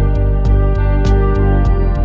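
Background music with a steady beat: sustained synth or guitar chords over a deep bass and regular drum hits.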